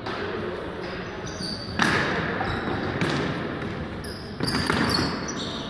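Indoor field hockey play on a wooden sports-hall floor: sharp knocks of sticks striking the ball. The loudest knock comes a little under two seconds in, with more about three and four and a half seconds in.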